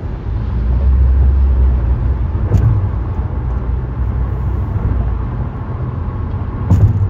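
Road noise heard from inside a car driving at highway speed: a steady low rumble of tyres and engine, heavier for about a second near the start, with two short knocks, one near the middle and one near the end.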